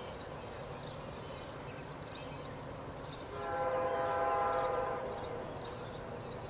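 Diesel locomotive air horn sounding one blast of about a second and a half, a little over three seconds in, from a train approaching the crossing. Birds chirp throughout.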